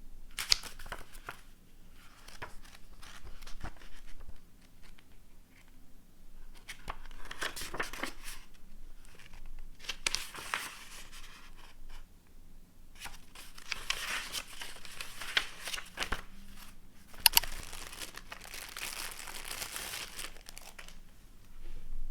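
Packaging being unwrapped by hand: several bouts of crinkling and rustling, likely from plastic wrap or bags, with sharp clicks and taps in between. The longest bouts come in the second half.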